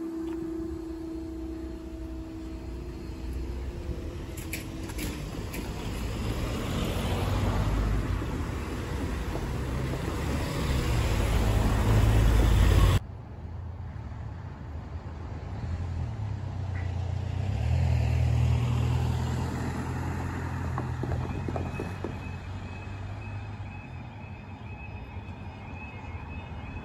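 Road vehicles driving over the level crossing, their tyres and engines rumbling as they pass, with a cut partway through. About 22 seconds in, the crossing's high-pitched warning alarm starts up as the lowering sequence begins.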